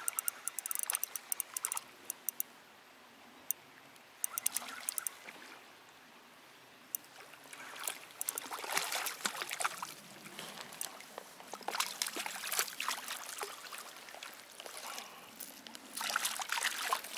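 Water trickling and splashing in short bursts, with rapid mechanical clicking in the first couple of seconds.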